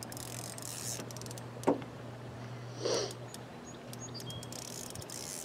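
Faint clicking of a spinning reel as a hooked fish is played, over a low steady hum, with a short sharp sound a little under two seconds in and a brief breathy sound about three seconds in.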